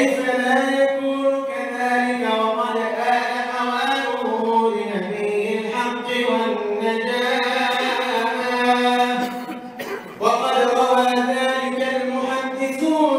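A solo male voice chants unaccompanied into a microphone: a melodic Arabic madih recitation of the Prophet's biography, with long, ornamented held notes. He breaks off briefly for breath about ten seconds in, then carries on.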